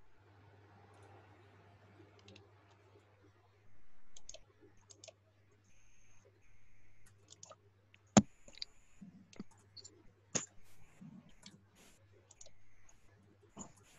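Scattered sharp clicks from a computer mouse and keyboard, picked up by an open computer microphone over a faint steady electrical hum; the loudest click comes about eight seconds in.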